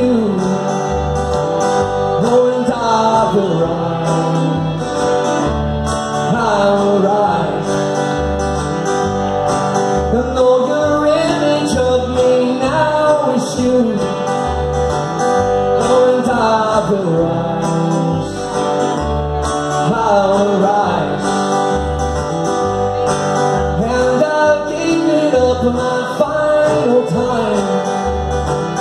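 Live acoustic country-folk music: a steel-string acoustic guitar strummed with a fiddle playing over it, and a man singing.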